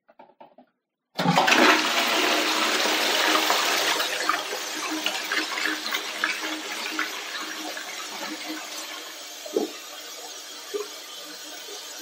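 A toilet flushing: after a few faint clicks, a sudden loud rush of water starts about a second in, then slowly dies away with gurgling as the bowl drains.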